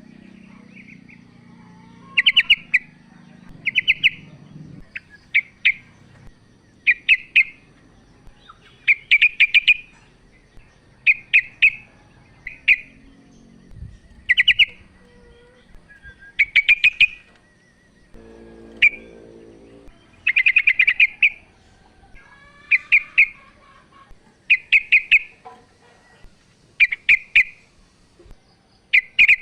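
Female yellow-vented bulbul (trucukan) calling: short, quick chattering phrases repeated about every two seconds.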